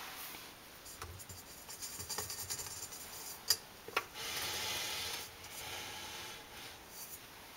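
Fingers rubbing and scratching on the stainless steel bowl and body of a KitchenAid stand mixer, with two sharp taps about half a second apart around the middle.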